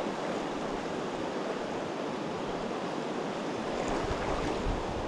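Fast river water rushing steadily around a wading angler, with low buffeting on the microphone from about four seconds in.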